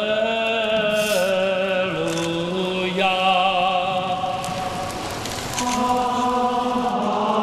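Men's voices singing a liturgical chant in a slow melody of long held notes that step to a new pitch every second or so.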